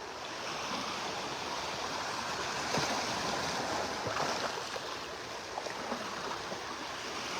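Small Gulf of Mexico waves washing up the beach on an incoming tide: a steady wash of surf that swells and eases slightly.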